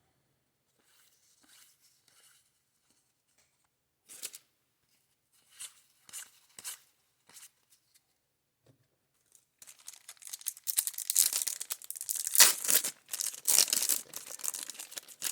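A trading-card pack wrapper being torn open, crinkling and tearing loudly through the last five seconds, after a few short, soft rustles.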